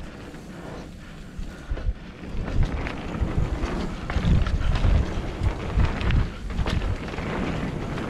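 Wind rushing over the microphone as a mountain bike is ridden over a dirt trail, a low rumble with scattered knocks and rattles from the bike, growing louder about two and a half seconds in.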